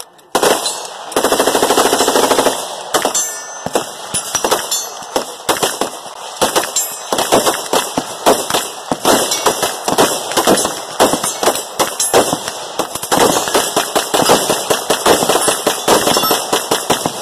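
Many guns firing rapidly at once in a 'mad minute' of sustained fire, with an AR-style rifle shooting close by. About a second in there is a long, very fast run of shots, followed by a steady stream of overlapping shots.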